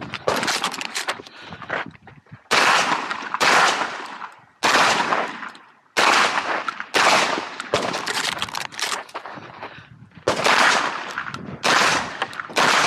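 A string of shotgun shots fired in a practical shooting stage, about a second apart, each one ringing out and decaying. There is a longer pause about two-thirds of the way through.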